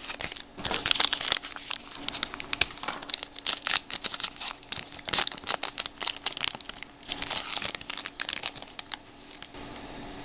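Crinkly plastic wrapping on a trading-card blaster box and its packs being torn open and crumpled, a dense run of crackles that stops near the end.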